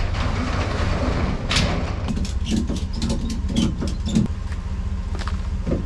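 A pickup truck's engine idling steadily under the rattle of a metal roll-up storage door being pulled shut, followed by a run of knocks and clicks.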